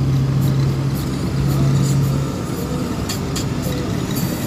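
Vehicle cabin noise while driving along a highway: steady engine hum and road noise, with a low drone that drops away about halfway through and a few light clicks.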